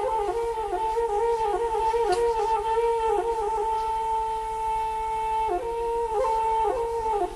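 Flute playing a solo melody in Sumatran folk music, ornamented with quick turns, with one long held note in the middle.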